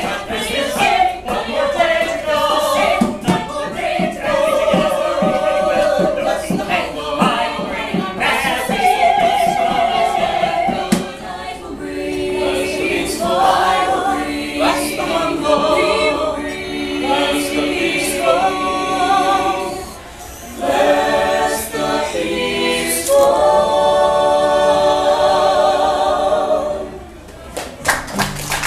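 A group of voices singing a cappella in harmony, with long held chords. The singing stops near the end and a few claps begin.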